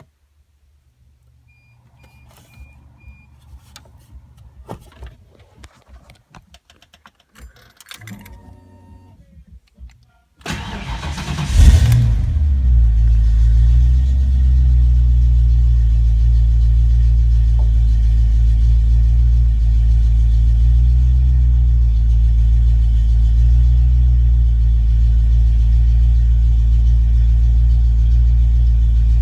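Faint clicks and handling noises for about ten seconds, then a fox-body Mustang's 5.0 V8 cranks briefly and starts about eleven seconds in. It settles into a steady idle, a sign that the rebuilt A9L engine computer under test runs the engine.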